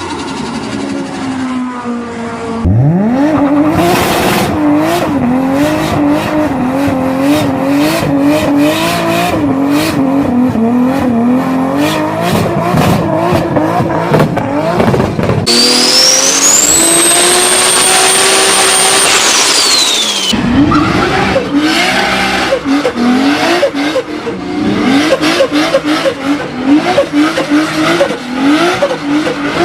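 Turbocharged car engines running hard in a run of short clips, the engine note rising and dropping again and again through revs and shifts. In the middle a high turbo whistle climbs, holds for a few seconds, then falls away.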